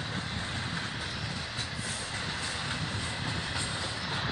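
Freight cars of an intermodal train carrying truck trailers on flatcars, rolling past close by: a steady noise of steel wheels on rail.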